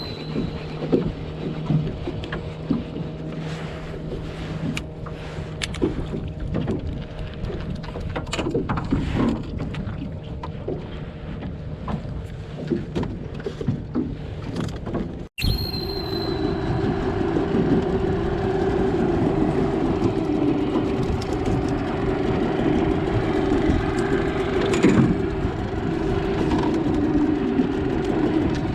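A motor running steadily with a steady hum under noise, cutting off abruptly about halfway and resuming at once, a little louder.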